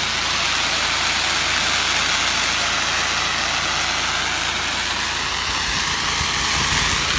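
Soft-wash rig spraying house-wash solution onto siding: a steady hiss of the spray over the even drone of the rig's engine-driven pump running.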